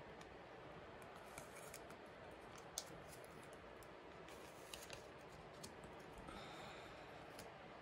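Faint handling of plastic: photocards in clear sleeves being slid into the pockets of a binder's plastic pocket pages, with a few sharp little clicks and a soft sliding rustle near the end.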